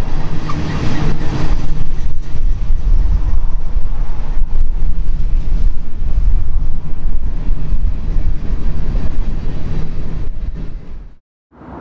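Freight train passing, a loud steady low rumble with a faint hum of engine tones, which cuts off abruptly near the end.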